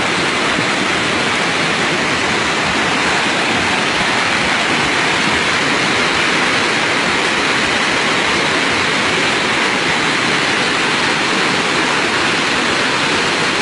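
Muddy floodwater torrent rushing past, a steady, unbroken roar of water.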